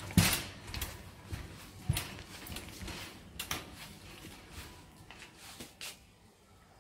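Wire shopping trolley rattling as it is pushed over a shop floor: irregular clacks and knocks, loudest in the first couple of seconds and growing fainter toward the end.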